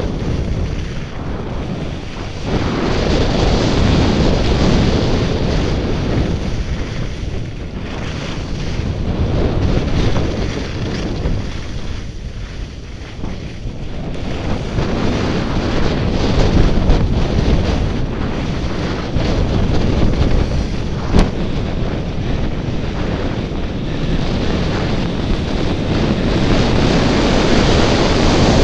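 Wind buffeting the camera's microphone, mixed with skis scraping over packed snow, in a rushing noise that swells and eases with the turns of a downhill ski run. One sharp click about two-thirds of the way through.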